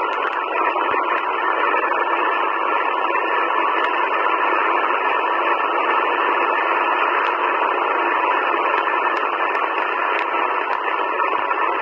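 Sihuadon D-808 shortwave receiver's speaker giving out a steady static hiss on the 15-metre amateur band, with no station coming through. The hiss is held to a narrow voice-width band, with no deep rumble and no high end, as the receiver's single-sideband filter passes only band noise.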